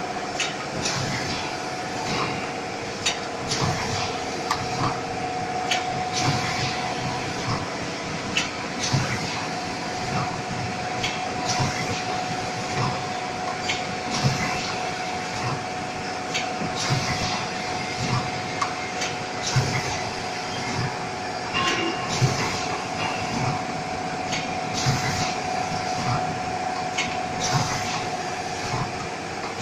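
An automatic cup-filling packaging machine running: a steady whine under a constant stream of mechanical clicks, clacks and low knocks from its moving parts.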